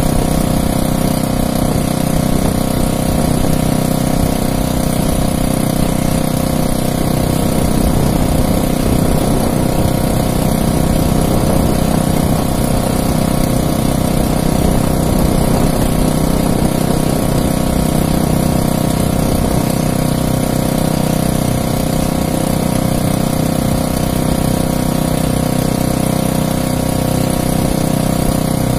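Outrigger fishing boat's gasoline engine running steadily at an even speed.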